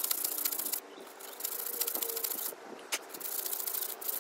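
Emery paper rubbed by hand over the metal mating surface where a brake rotor seats against the hub, cleaning off rust and dirt. Several long back-and-forth strokes of about a second each, with short pauses between them.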